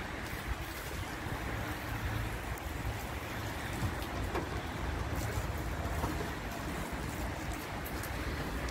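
Self-service car wash foam brush scrubbing over a car's wet, soapy bodywork with water running from the brush: a steady wash of noise over a low rumble, with a few faint clicks.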